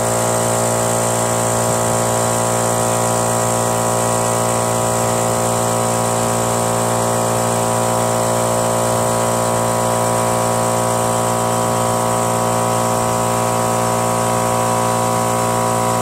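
Electric air compressor running, a loud, steady pitched hum with many overtones and no change in speed.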